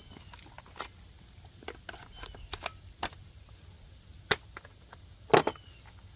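Metal hand tools and sockets clinking and knocking while being fitted to bolts: a scattering of light clicks, then two sharp, louder clinks near the end.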